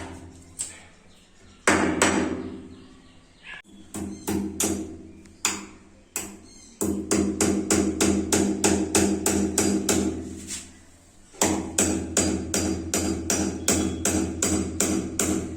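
A hammer knocking plastic wall plugs into holes drilled in a wall, a run of sharp blows with short pauses between, over background music.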